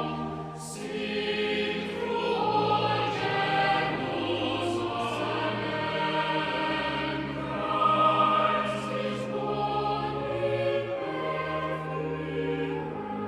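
Background choral music: voices singing long held notes that change every second or two.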